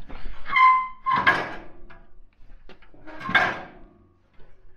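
Two scraping, rattling bursts of handling noise, about two and a half seconds apart, as something is moved or rubbed against metal; the first carries a short squeak.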